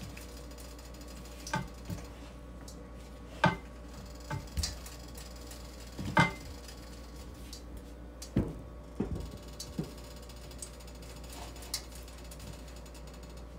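Scattered soft knocks and taps of a gloved hand and chicken pieces against a ceramic bowl while the chicken is tossed in a corn-starch coating, the loudest about three and a half and six seconds in, over a low steady hum.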